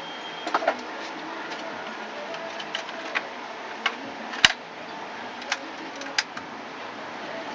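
Scattered light clicks and taps of small computer hardware being handled, as a desktop processor is fetched for swapping into the board, with one sharper click about four and a half seconds in, over a steady low background hiss.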